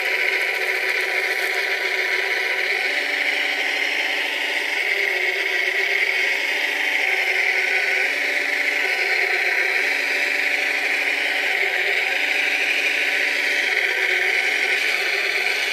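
Scale model Cat 966 wheel loader running: its motors give a steady high whine, and a lower hum cuts in and out every second or two as the bucket is worked and tips soil.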